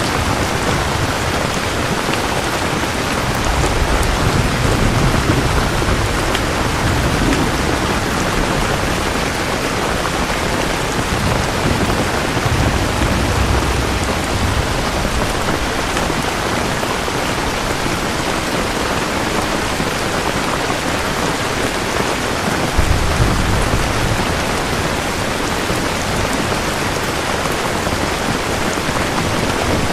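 Heavy rain falling steadily, a dense hiss of drops on surfaces, with low rumbles of distant thunder swelling up a few times.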